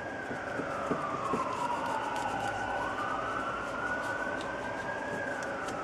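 Emergency vehicle siren in wail mode. Its pitch falls slowly over about three seconds, climbs back, and begins to fall again near the end. A few faint clicks sound in the first second or so.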